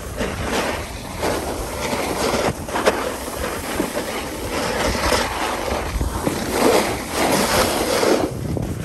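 Snowboard sliding and scraping over hard-packed, tracked snow, the rasping scrape swelling and fading in waves as the board turns.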